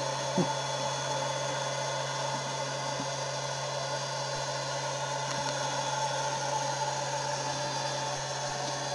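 Electric air blower of a wood gasifier running steadily: a constant motor hum with an even hiss, pushing gas out to the lit primary flare.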